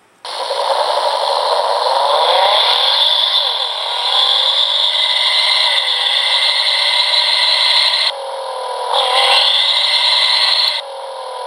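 Race-car engine sound effect played by a sound IC through a small speaker: the start clip revs up in the first few seconds, then the middle clip of the engine running at speed loops on. Tinny, with no low end.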